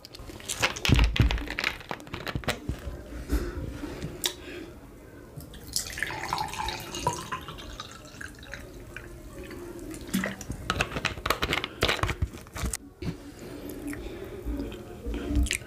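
Close-miked wet eating sounds: amala with ewedu and gbegiri soup being chewed and swallowed, with irregular wet smacks and clicks.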